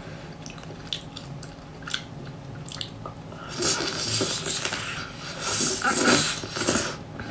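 Close-miked mouth sounds of eating homemade ice cream with a thick crisp coating: a few small clicks, then, from about three and a half seconds in, two spells of biting and wet chewing.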